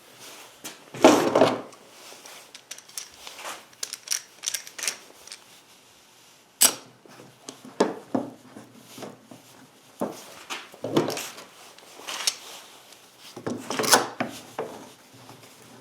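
Wooden box parts and tools being handled and set down during a glue-up: an irregular run of light knocks, taps and clatters, the loudest about a second in and again near the end.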